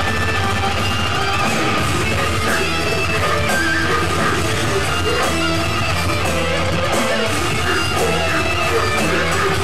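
Death metal band playing live: heavily distorted electric guitars riffing over bass and drums, at a steady loud level with no break, as heard from within the club crowd.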